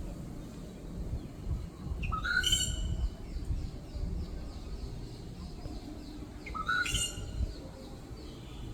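A bird calling: two loud, short calls that each rise sharply in pitch, about four and a half seconds apart, with a faint run of quick, repeated notes between them.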